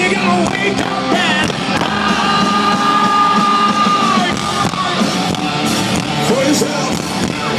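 Hard rock band playing live at full volume, distorted guitars and drums, with one long held note about two seconds in.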